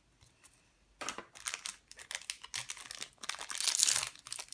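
Foil wrapper of a Cardfight!! Vanguard booster pack crinkling and tearing open by hand. It starts about a second in and is loudest near the end.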